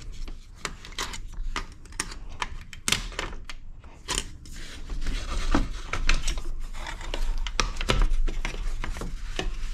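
Irregular clicks, taps and knocks of plastic wiring connectors, clips and the rubber intake hose being handled and worked loose by hand in the engine bay.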